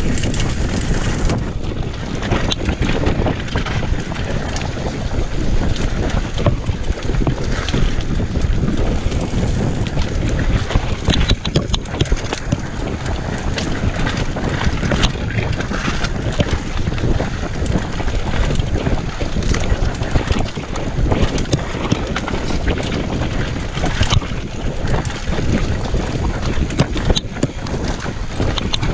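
Wind buffeting the action camera's microphone on a fast mountain bike descent, with the bike clattering and knocking continuously as it runs over a rough dirt trail.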